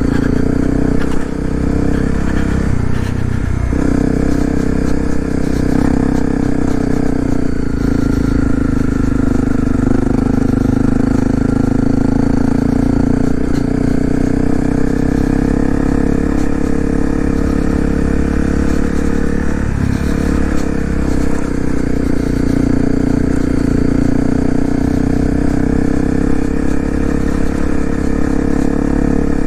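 2018 Honda CRF250L single-cylinder four-stroke engine running steadily under way. The pitch holds mostly level, with brief changes in revs a couple of times.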